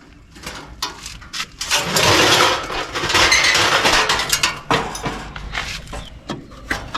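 Metal clanking and scraping as an old Goodman central air conditioner's outdoor unit is taken apart, with a dense rattling clatter of debris falling inside the cabinet about two seconds in.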